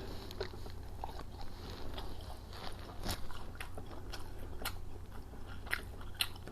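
A person chewing and smacking food close to the microphone, with soft crunches and scattered short wet mouth clicks.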